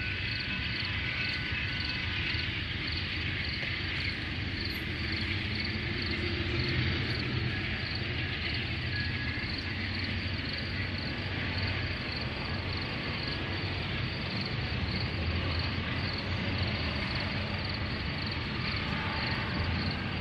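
Amtrak passenger train led by ALC-42 Charger diesel-electric locomotives, rumbling steadily as it rolls out of the station. Crickets chirp alongside in a high, evenly pulsing trill.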